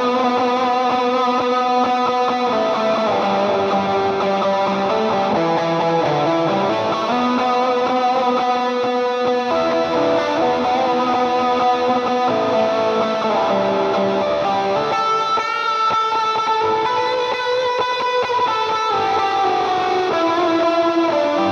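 Telecaster-style electric guitar playing a lead line of held single notes through a Line 6 HX Stomp preset tone-matched to a Vox AC15C1 amp, on its lead snapshot. The line climbs to higher notes a little past the middle.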